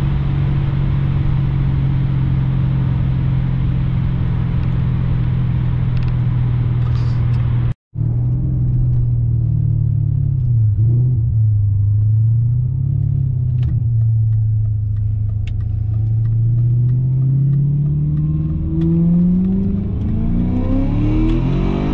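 BMW E39 540i's 4.4-litre V8, fitted with the older 4.0 V8 intake manifold, heard from inside the cabin while driving at highway speed: a steady engine drone with tyre and road noise. The sound cuts out for an instant about eight seconds in; after that the engine note dips briefly, holds steady, then climbs over the last few seconds as the car accelerates.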